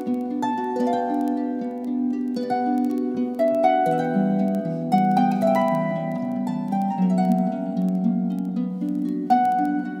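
Background music: a light melody of quick plucked notes over held lower notes.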